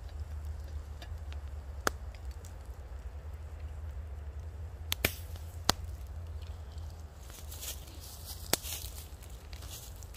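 Four sharp clicks a few seconds apart, over a steady low rumble.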